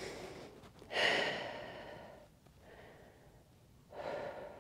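A woman breathing hard while holding a stretch after strenuous exercise: a long exhale about a second in that fades away, and a shorter one near the end.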